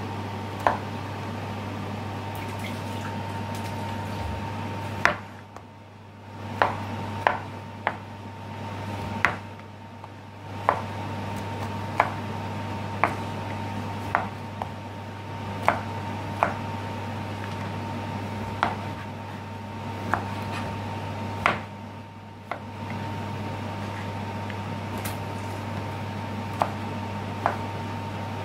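Kitchen knife cutting through peeled bottle gourd (lau) on a wooden chopping board: sharp knocks each time the blade meets the board, irregular and about one a second, with a pause a few seconds before the end. A steady low hum runs underneath.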